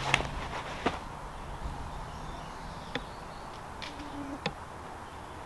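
A disc golf drive off the tee: a sharp snap as the disc is ripped from the hand just after the start, then a few faint scattered ticks as the thrower steps off.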